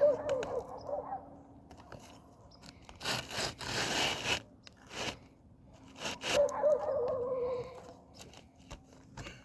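Brittle asphalt shingle crunching and scraping in a burst about three seconds in as a roofing tool is worked under it to reach the nails. An animal's wavering call sounds at the start and again about six seconds in.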